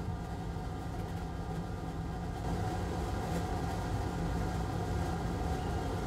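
Steady machine hum from bench equipment, a motor or fan running with a few held tones over a low rumble; it grows a little louder about two and a half seconds in.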